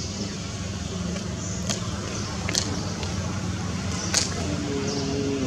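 Outdoor ambience: a steady low rumble under distant human voices, with faint high bird chirps and three sharp clicks, the loudest near the end.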